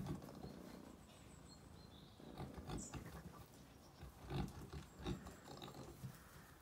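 Sheep shuffling about in straw, with a few short dull knocks and scuffles from the rams, faint overall.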